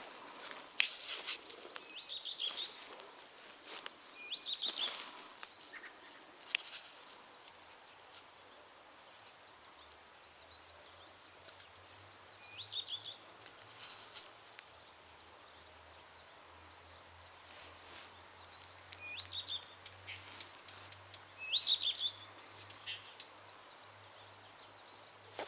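A songbird singing short phrases, each a low note followed by a quick high cluster, about five times with pauses between. Brief rustles or steps come now and then, and a faint low drone comes in about halfway through.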